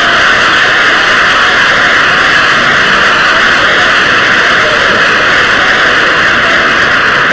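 Audience applauding and cheering in a live concert recording: a steady, loud wash of clapping with faint shouts in it, where the music has stopped.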